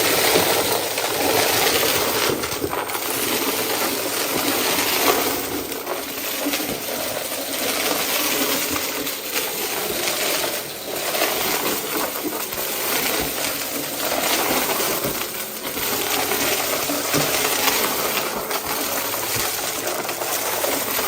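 Vacuum cleaner sucking up crunchy debris, a dense steady crackle that eases off briefly every few seconds.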